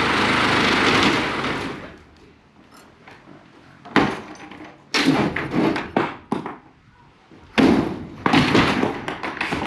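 A power tool runs loudly and stops about two seconds in. After a pause come a string of sharp metal bangs and clatters as the roll-up door's overhead track is wrenched down inside the empty steel truck box.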